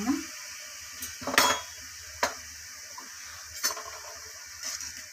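A spatula knocks against a kadai about four times over the steady hiss of sugar syrup heating toward a boil in the pan.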